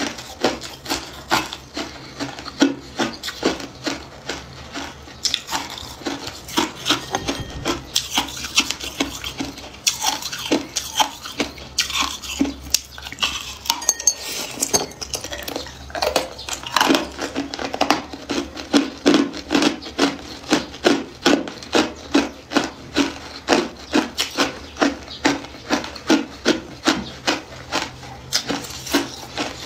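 Hard clear ice being bitten and chewed, a steady run of sharp cracking crunches about two a second.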